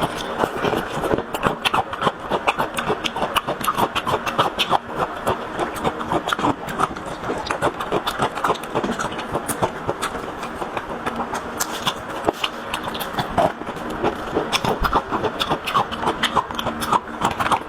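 Close-up chewing and lip-smacking while eating four-joy meatballs (braised pork meatballs): a dense, irregular run of quick clicks and smacks.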